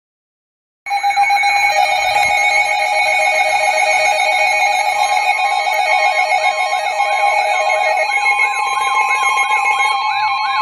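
Weather alert radios going off at once with their alarm tones, starting abruptly about a second in. Steady beeping tones, a fast warble and a rising chirp about twice a second all overlap. This is the radios' alarm for an incoming NWS severe thunderstorm warning.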